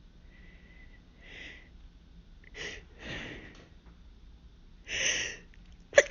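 A woman's short sniffing, gasping in-breaths, four of them, as a sneeze builds during a hayfever sneezing fit, then a sudden loud sneeze breaks out at the very end.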